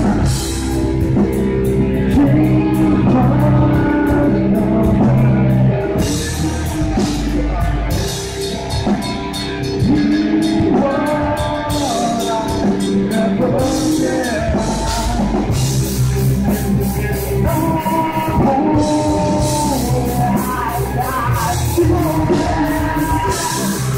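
A heavy metal band playing live: distorted electric guitars, bass guitar and a Pearl drum kit with steady cymbal hits, with a vocalist singing over them.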